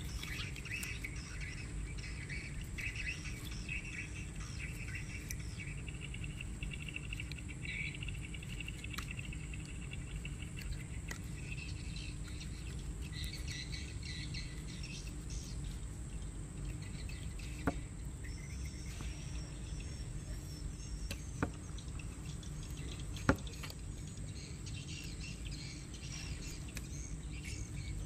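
Outdoor ambience of birds chirping and a steady high-pitched insect drone over a low background rumble, with three sharp clicks in the second half as a kitchen knife taps the wooden chopping block while scoring squid.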